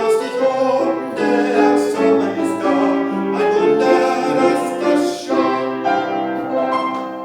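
Piano playing the melody of a children's canon, with notes in a steady rhythm; the music fades away near the end.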